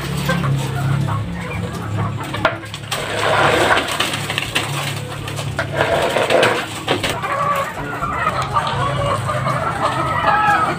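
Many caged laying hens clucking, over a steady low hum. A few sharp knocks and scrapes come from a metal scraping bar worked along the concrete droppings trough.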